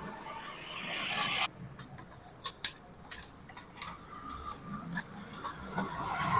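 Hands working on a dot-matrix printer's wiring and a sheet-metal bracket. A rising rustling hiss cuts off suddenly about a second and a half in, followed by scattered clicks and taps of metal parts, with one sharp click a little before the middle.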